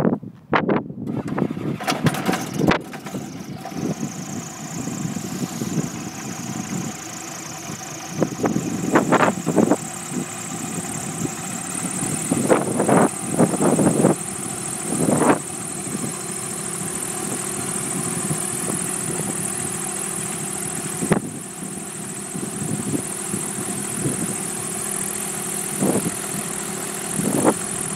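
Light aircraft's Rotax four-cylinder engine starting up a couple of seconds in, then running steadily at idle with its propeller turning. A high whine climbs slowly, and there are occasional louder gusts.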